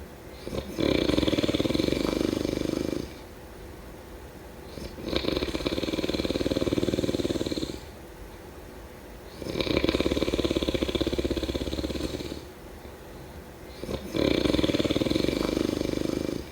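A person snoring: four loud snores roughly every four and a half seconds, each lasting two to three seconds, with quieter breathing between them.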